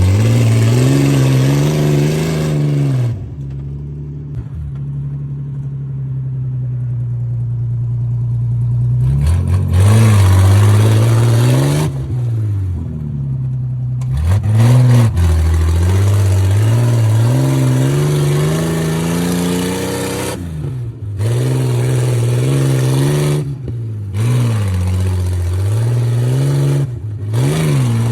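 Jeep Cherokee XJ engine accelerating under load, its pitch climbing and then dropping sharply at each gear change, about half a dozen times over.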